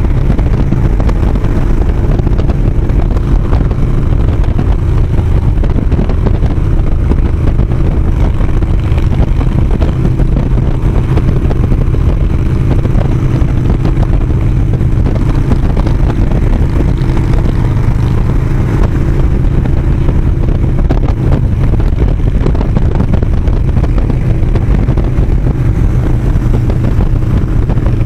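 Harley-Davidson touring motorcycle's V-twin engine running steadily at highway cruising speed, a continuous low rumble mixed with road and wind noise.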